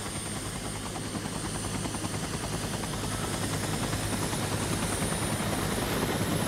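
Mil Mi-8-family helicopter passing low overhead. Its rotor blades chop fast and evenly over a steady turbine hum with a thin high whine, and the sound grows gradually louder.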